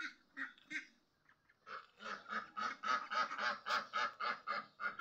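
Poultry calling: a few short calls near the start, then a fast, even run of about three to four calls a second from about two seconds in.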